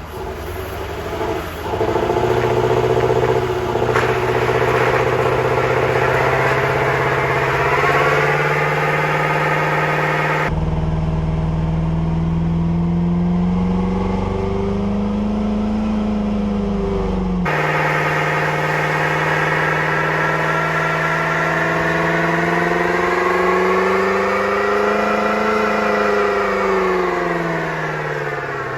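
Car engine revved up and held at high revs during a burnout, its pitch wavering and swelling up and down twice. The engine is missing and running badly, and it bogs as the tires heat up.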